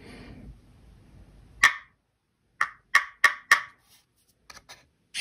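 Knuckle taps on a plywood book box: one tap, a pause of about a second, then four quick taps, tapped as a secret-knock pattern for the box's knock-sensing latch. A few faint clicks follow.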